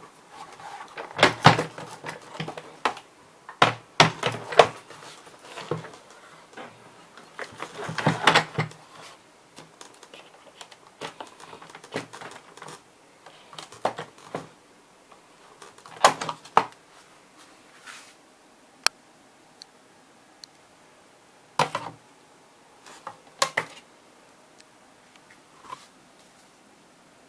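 Irregular clicks and knocks of hard plastic parts being handled, with the water-filter vacuum cleaner switched off. The knocks come in clusters for the first several seconds, then thin out to single clicks.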